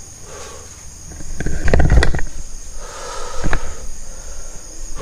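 Crickets chirping steadily in the night, with a loud stretch of rustling and knocks about a second and a half in as the handheld camera is moved, and a single sharp click later on.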